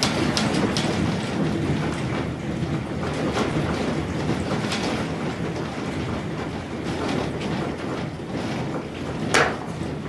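Continuous low rumble with irregular rattling and clattering over it, and one sharp, loud clatter near the end.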